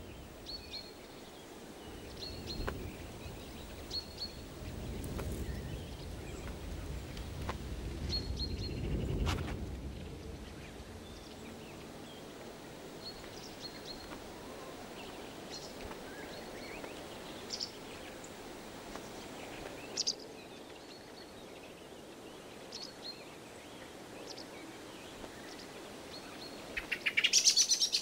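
Woodland songbirds calling with short, scattered chirps, with a low rumble that swells and fades in the first third. Near the end a sudden loud burst of bird alarm calls breaks out, the warning calls at a sparrowhawk's attack.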